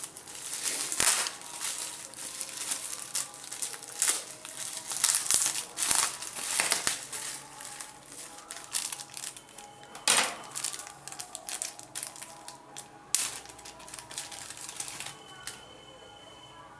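Plastic packaging crinkling and rustling as it is handled and opened, in irregular crackly bursts that thin out near the end.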